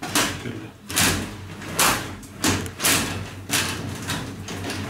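Sliding shower-cabin door pushed open and shut along its track on its newly replaced rollers, knocking against the frame several times, about once a second. It runs freely now that the repair is done.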